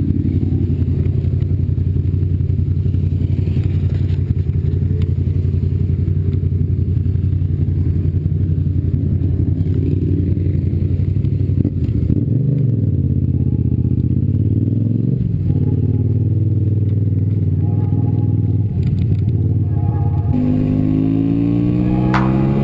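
Motorcycle engine running steadily at low revs as the bike rolls slowly, its pitch dipping and rising briefly around the middle. Near the end the engine note sweeps up and down as the bike accelerates.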